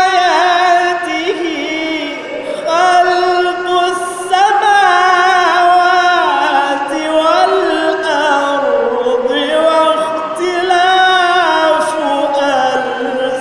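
A man's solo voice reciting the Quran in Arabic, sung in the melodic tilawah style into a handheld microphone. He holds long ornamented notes that glide up and down, with short breaths between phrases.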